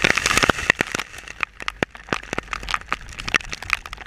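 Heavy rain striking close to the microphone: an irregular patter of sharp taps and crackles.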